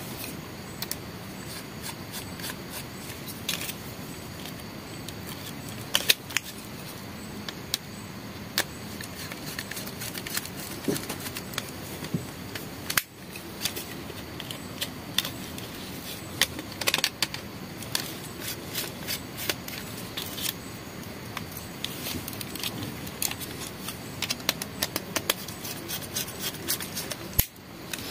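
Scattered small clicks, taps and scrapes of a plastic switch-and-socket plate and its wires being handled while a screwdriver is held, as the wires are fitted to the terminals.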